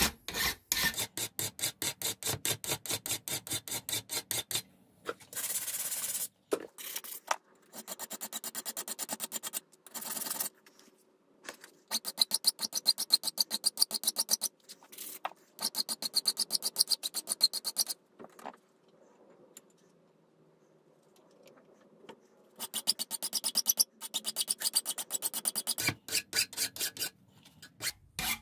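Hand file rasping back and forth on a steel clutch arm held in a vise, shaping the built-up MIG weld around the pivot hole. It comes in runs of strokes at about three a second, broken by short pauses and a few seconds' stop past the middle.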